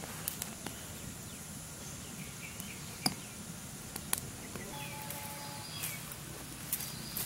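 Forest ambience: scattered short bird chirps over a steady high insect drone and a low hum, with a few sharp pops from wood crackling in a small fire in an earth pit.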